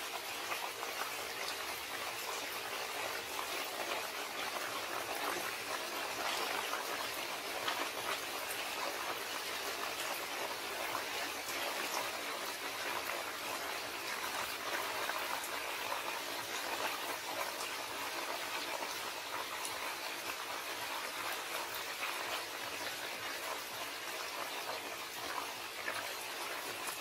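Steady rain, a continuous hiss of falling drops with many fine ticks.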